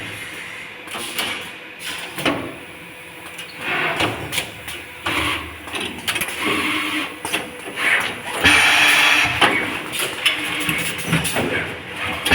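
Automatic lug-crimping and tape-bundling wire harness machine running: irregular clicks and clunks from its mechanisms with bursts of hiss from its air-driven parts, louder and busier from about eight seconds in.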